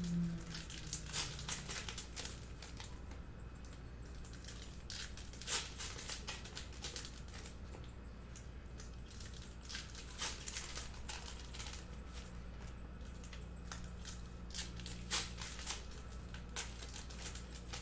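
Baseball card pack wrappers being torn open and crinkled, with cards handled: irregular sharp crackles and rustles, over a steady low hum.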